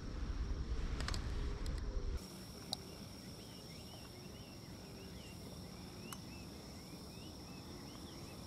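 Outdoor ambience: low wind rumble with a few light clicks for about two seconds, then a steady high insect trill with small repeated chirps over it and an occasional click.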